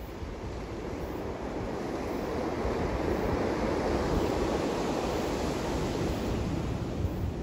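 Sea waves breaking and washing against rocks and concrete tetrapods, the surf swelling to a peak midway and then easing off, with wind rumbling on the microphone underneath.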